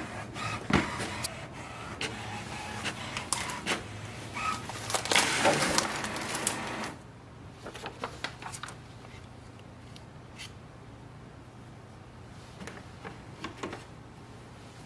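HP Smart Tank 7001 inkjet printer printing its alignment page: paper feed and print-head carriage running with many clicks, loudest near the end, then stopping suddenly about seven seconds in. After that only faint clicks as the printed sheet is handled.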